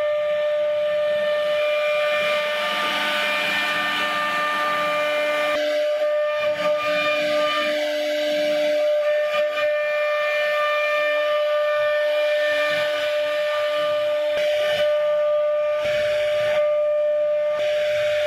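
CNC router spindle running with a steady high-pitched whine while its bit cuts into a wooden door panel, with the hiss of the cut over it.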